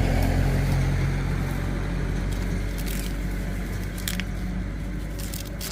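A motor vehicle engine running steadily with a low hum that slowly grows fainter, with a few sharp clicks in the second half.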